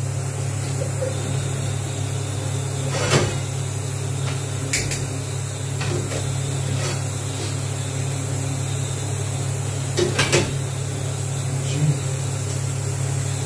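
Pots and utensils knocking and clattering on a gas stove top over a steady low hum: one knock about three seconds in, a lighter one near five seconds, and two close together around ten seconds.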